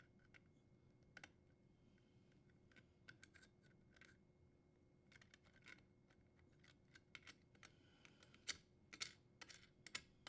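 Faint, scattered clicks and ticks of needle-nose pliers turning a dishwasher cord's strain relief nut off the junction box. The clicks come more often and louder over the last few seconds.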